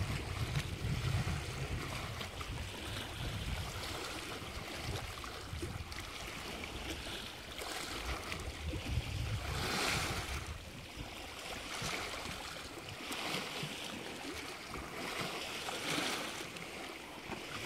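Lake Superior waves washing in, a swell of hiss every two to three seconds, with wind rumbling on the microphone through the first half.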